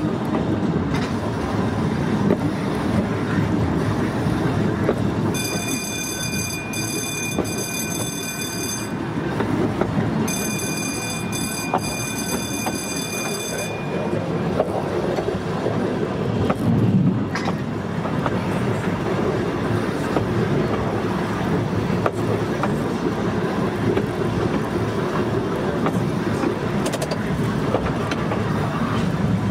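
Volk's Electric Railway car running along the narrow-gauge track, a steady electric-train rumble of wheels on rail with faint clicks over the rail joints. A high, steady warning tone sounds twice, each time for about three and a half seconds, as the car approaches a foot crossing.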